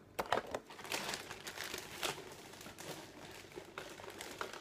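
Hands rummaging through packaging, a run of irregular crinkling and rustling crackles.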